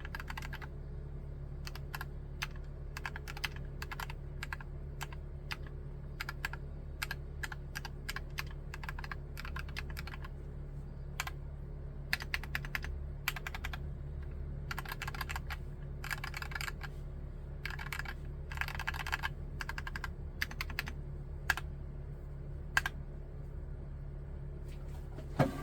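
Typing on a Drop + OLKB Preonic ortholinear mechanical keyboard with Gateron Black linear switches: keystrokes come in uneven runs with short pauses, including a few quick flurries, and one louder keystroke near the end.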